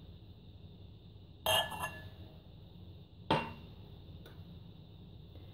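Two short clinks of glass and ceramic kitchenware being handled, about two seconds apart, each with a brief ring.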